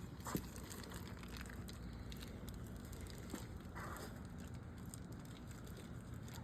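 Faint handling of small metal engine parts: a few light clicks and knocks, the sharpest about a third of a second in and more around three and a half seconds in, over a low steady hum.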